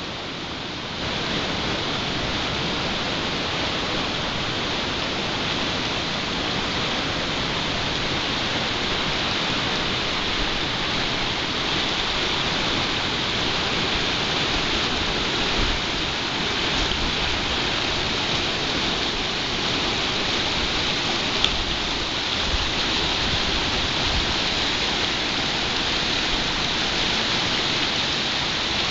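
Mountain river rushing over a stony bed: a steady, even rush of flowing water.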